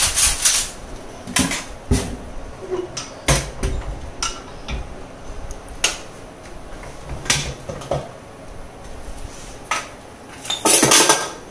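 Metal kitchen utensils clinking and clattering as a utensil drawer is rummaged and a pressure cooker's lid is worked off, with a louder scraping rattle near the end.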